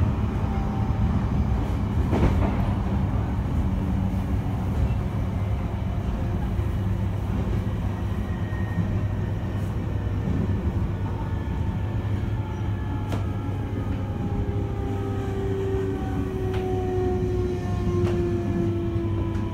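Running sound inside a JR East E721-1000 series electric train: a steady rumble of wheels on rail. From about halfway through, the whine of its Mitsubishi IGBT VVVF inverter and traction motors slides steadily down in pitch as the train slows.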